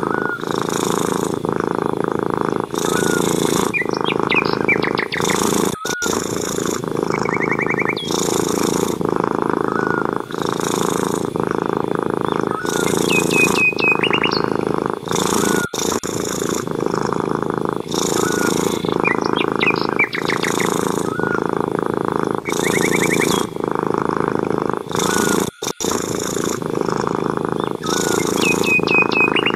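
Cat purring steadily and loudly, the purr rising and falling in a regular rhythm with its breaths. Short bird chirps and trills come in now and then above it.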